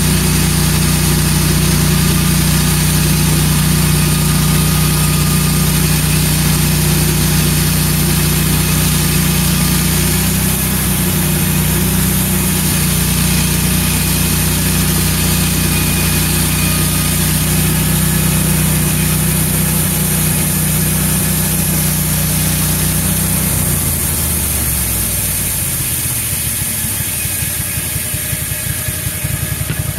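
Wood-Mizer LT15 band sawmill's engine running steadily under load as the band blade cuts through an ash log. About 24 seconds in, the engine's pitch falls over a couple of seconds as it slows at the end of the cut.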